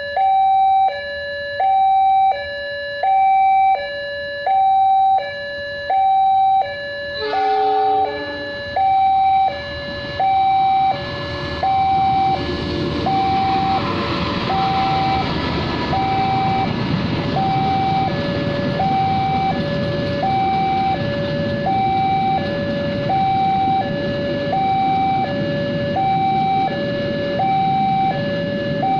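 Railway level-crossing warning siren sounding a steady two-tone hi-lo wail, switching pitch about every 0.7 seconds. A brief horn sounds about 7 seconds in, and from about 12 seconds a broad rumble rises and continues under the siren.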